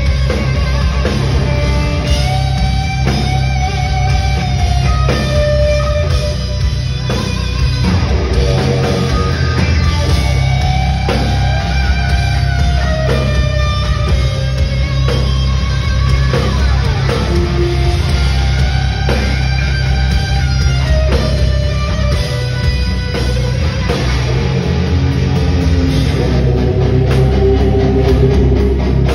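Heavy metal band playing live at full volume: a lead electric guitar solo with bent, held notes over distorted rhythm guitar, bass and drums.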